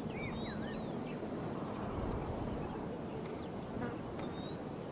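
Outdoor nature ambience: a steady insect-like buzz with short bird chirps, several in the first second and a few more near the end.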